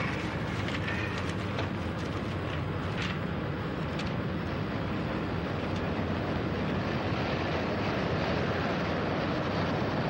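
Jet airliner in flight, its engines giving a steady, even rushing noise that holds level throughout.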